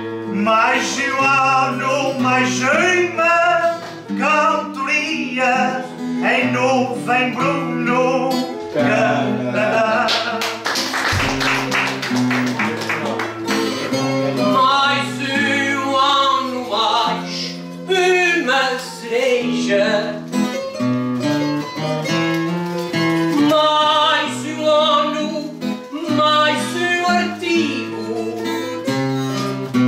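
Live folk music: a singer's verse over plucked string accompaniment, with a strummed instrumental break about ten seconds in before the singing resumes.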